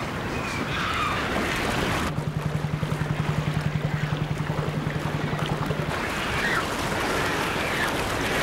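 Sea water splashing and churning, with short seabird calls at the start and again near the end. For about four seconds in the middle, a steady low pulsing hum: a boat's engine heard from under the water.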